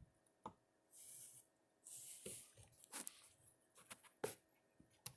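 Faint handling noises of a glass candle jar: a few sharp clicks and taps, with two short hissing bursts in the first half.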